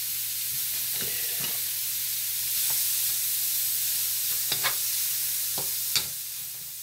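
Partly thawed frozen mixed vegetables sizzling in butter in a wok, a steady frying hiss, while a wooden spatula stirs them and knocks against the pan in several short sharp taps.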